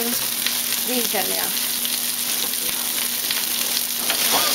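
Sliced onions sizzling in a large stainless-steel pan over high heat, a steady hiss.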